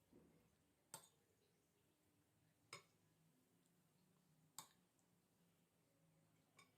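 Four light, sharp taps or clicks, spaced about two seconds apart, over faint room tone.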